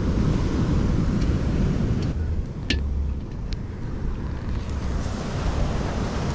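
Wind buffeting the microphone over the steady wash of surf breaking on the beach, with a sharp click about halfway through.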